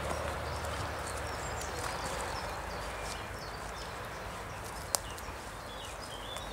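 Footsteps on a wood-chip woodland path, with small birds chirping and singing high above the walking noise; one sharp click about five seconds in.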